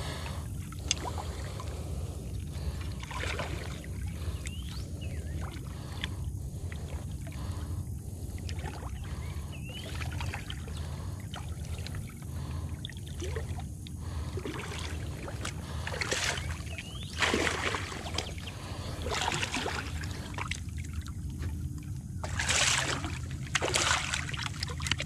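Water splashing as a hooked catfish thrashes at the surface beside rocks, with a few louder splashes in the second half, over a steady low rumble.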